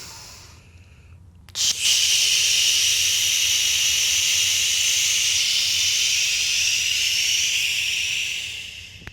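A person breathing: a quiet breath in, then about a second and a half in a long, loud hissing breath out lasting about seven seconds that fades near the end. It is a slow paced exhale drawn out to a 12-count.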